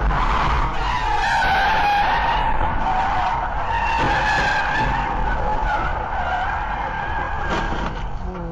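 Car tyres squealing in a long skid, starting about a second in and fading out near the end, over the steady low rumble of a car driving on the highway.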